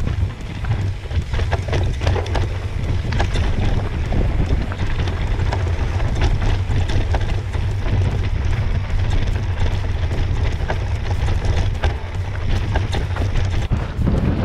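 Wind buffeting the microphone of a mountain bike's handlebar-mounted camera while riding down a rocky trail, a steady low rumble. Frequent clicks and rattles from the knobbly tyres running over loose stones and the bike shaking throughout.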